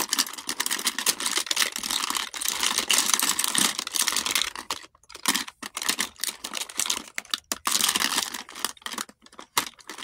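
Plastic makeup tubes, compacts and brushes clattering and rattling against each other as a hand rummages through a full drawer of them. A dense run of clicks and rustling for about five seconds, then sparser separate clicks.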